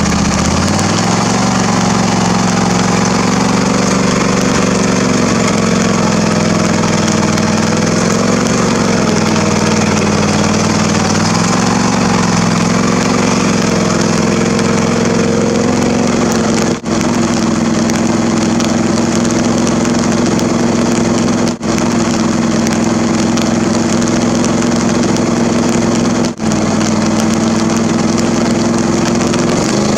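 John Deere LA145 lawn tractor engine running under throttle, rising in pitch about a second in, then wavering up and down as the tractor drives into a flooded mud hole and bogs down.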